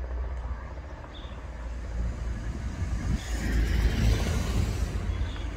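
Helicopter flying overhead: a steady low rotor and engine drone that swells louder from about halfway through.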